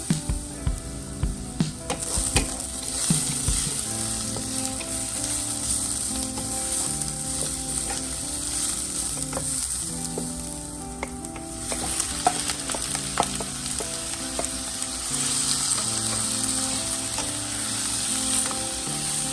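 Food sizzling as it fries in a hot pan, with sharp clacks of a utensil stirring in the first few seconds. The sizzle thins briefly about ten seconds in, then picks up again.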